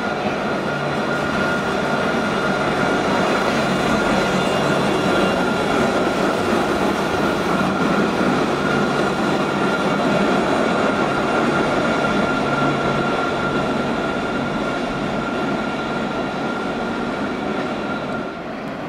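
Low-floor Alstom Citadis tram passing close by on street track: rolling wheel noise with a steady high whine, growing louder as it comes by, then easing off as it moves away near the end.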